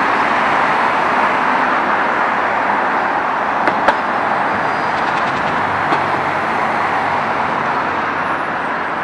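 Steady rush of heavy car traffic on a multi-lane city road, with one short click about four seconds in.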